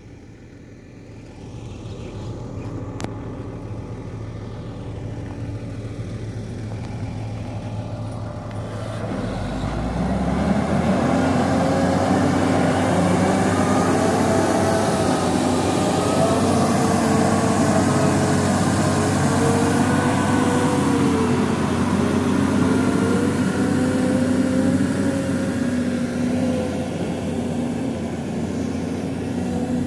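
Volvo EW205D wheeled excavator running, its diesel engine with a wavering whine over it as the machine drives. It grows clearly louder about ten seconds in as it comes close.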